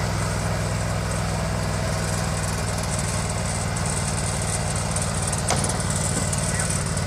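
Sawmill's engine running steadily at an even speed, a constant hum with a hiss over it.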